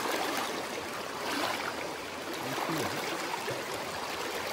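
Fast mountain stream flowing, a steady rush of water.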